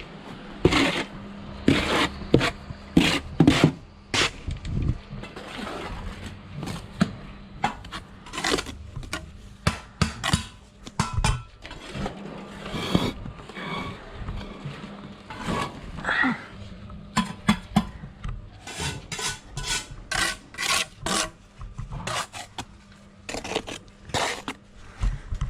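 Steel trowel scraping and knocking on mortar and concrete blocks during bricklaying: an irregular run of sharp clinks and scrapes over a steady hum.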